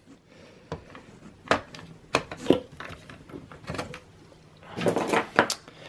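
Sharp plastic clicks and light knocks, about half a dozen spread over several seconds with a quick cluster near the end, as the memory slot retention clips on a Dell Optiplex 3020 motherboard are pressed open and the RAM module is pulled out.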